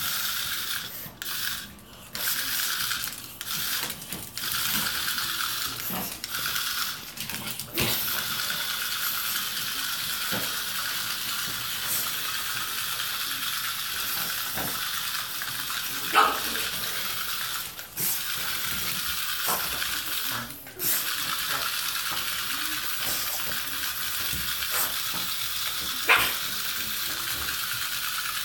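Remote-controlled toy crab's small motor and gears whirring as it scuttles, stopping and starting repeatedly. A pug barks briefly twice, about 16 and 26 seconds in.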